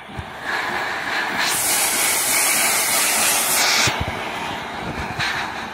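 Steam locomotive 3801, a streamlined 4-6-2, standing under steam with a steady hiss of escaping steam. About one and a half seconds in, a much louder, sharper hiss of released steam lasts about two seconds, then falls back.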